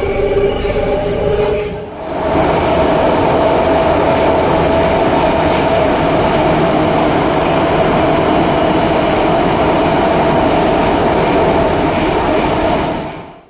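Metrowagonmash 81-series metro car running at speed, heard from inside. For the first two seconds a whine of several steady tones sits over the running noise. Then comes a louder, steady roar of wheels and tunnel with a droning hum, which cuts off abruptly at the end.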